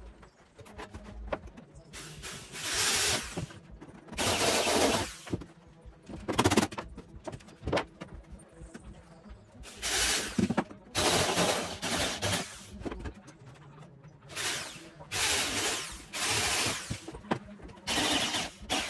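Handheld electric drill boring holes in the car's sheet-metal body panel, in about eight short bursts of a second or so with pauses between. The holes are weld holes being opened in the panel.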